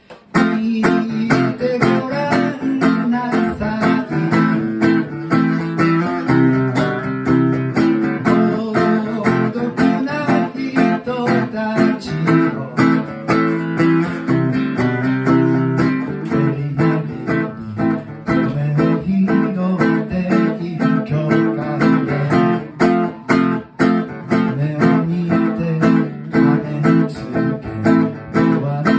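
Acoustic guitar strummed in a steady rhythm of full chords.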